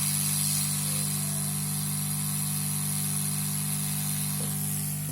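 Hot-air rework blower running, a steady hiss of air over a low hum, as it melts paste for the motherboard repair. The hiss drops away near the end.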